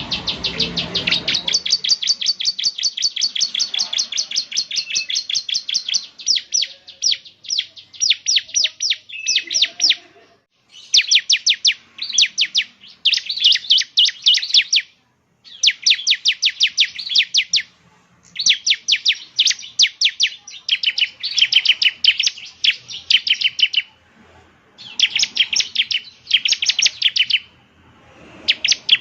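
Ciblek (bar-winged prinia) singing: fast, high, sharp repeated notes, about ten a second, in trills a few seconds long broken by short pauses.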